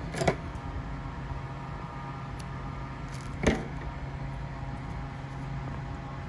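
A steady low electrical hum from a running appliance, with two sharp knocks: one just after the start and one about three and a half seconds in, most likely from handling the serger and its parts while threading.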